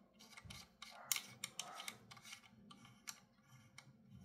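Knurled metal nut on a preamp's threaded ground post being turned by hand: faint, irregular small metallic clicks and scrapes of the threads, several a second.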